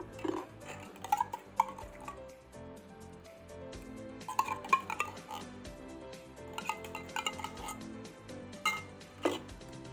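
Spoon and fork clinking and scraping against a plate of food while eating, in clusters of sharp clicks, with background music playing underneath.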